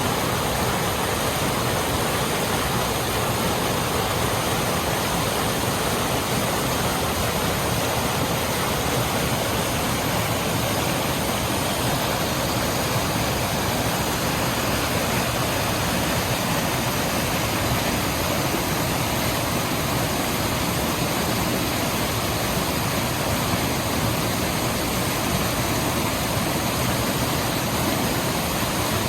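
Running water: a steady, even rush that never breaks or changes.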